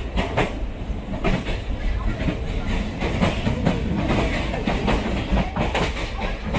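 Indian Railways express passenger coach running at speed, heard from its open window: a steady rumble of wheels on the track with repeated clacks as the wheels pass over rail joints.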